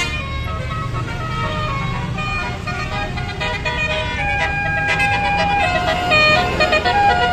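Multi-note Basuri 'telolet' bus horn playing a melody over the bus engine's low running rumble. The horn notes grow louder from about four seconds in, holding and stepping up and down in pitch.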